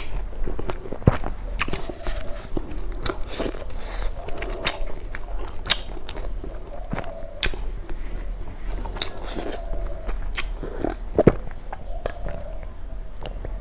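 Close-up eating sounds: a person chewing and smacking their lips, with frequent sharp wet clicks at an irregular pace.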